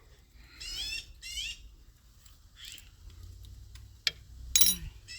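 Two short, high, wavering squeaks in the first second and a half, then a light click and a sharp metallic clank with a brief ring near the end.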